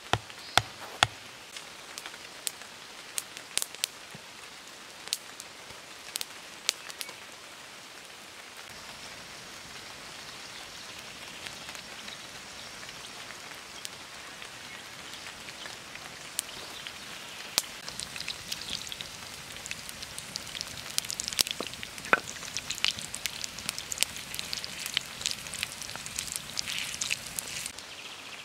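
A hatchet striking wood three times in the first second, then a campfire crackling with irregular sharp pops over a steady sizzle of food frying in a pan on the fire. The pops grow thicker in the second half.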